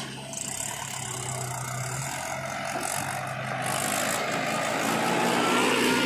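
Mahindra tractor's diesel engine pulling a trolley loaded with soil, growing louder as it comes close in the second half.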